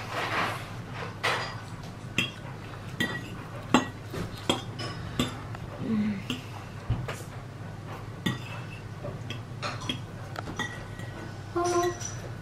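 Metal fork and knife clinking and scraping against a ceramic dinner plate while eating, with sharp, briefly ringing clinks every second or so. A slurp of spaghetti opens it.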